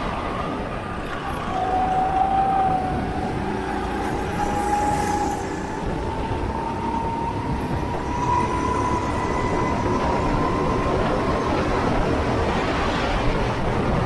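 Go-kart engine running hard, its note climbing slowly and steadily in pitch for several seconds as the kart accelerates, over a dense rumble.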